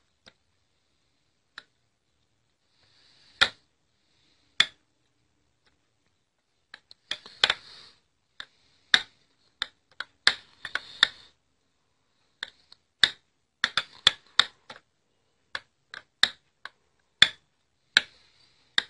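A utensil stirring a mash of banana, milk powder and rose water in a small bowl: sharp irregular clicks and short scrapes against the bowl, a few at first and coming more often from about seven seconds in.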